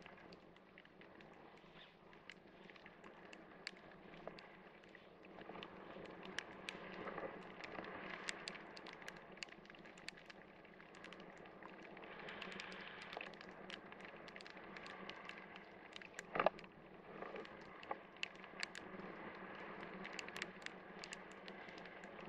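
Faint steady rush of air with many small, irregular sharp ticks: raindrops striking the camera during a parachute descent in heavy rain.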